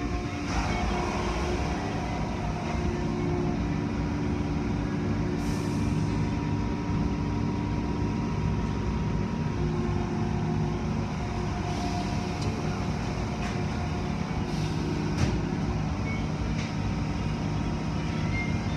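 Automatic car wash machinery heard from inside the car: a steady drone of motors and pumps, with water spraying and wash brushes working over the car, and a few brief hisses.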